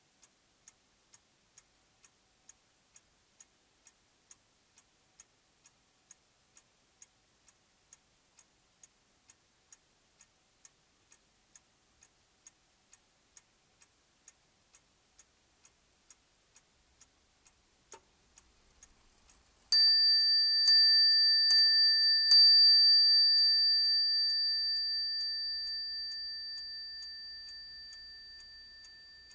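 Portico clock ticking evenly at about two ticks a second, then, after a click, its hammer striking the bell four times, a little under a second apart. The bell's ringing dies away slowly while the ticking goes on.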